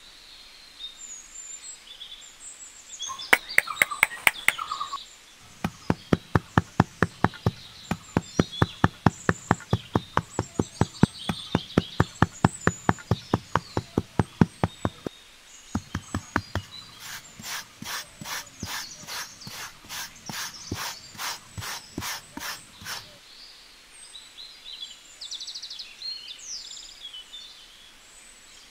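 A small metal trowel tapping and patting a layer of damp sand, a quick even run of taps about four or five a second that lasts around ten seconds, then a slower, softer run of strokes. Birds chirp faintly in the background.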